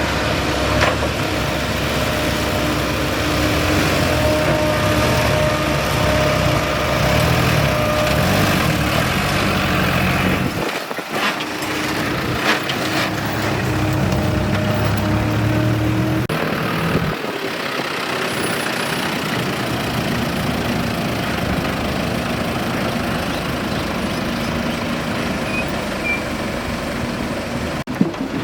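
Excavator's diesel engine and hydraulics running steadily, with a few brief knocks.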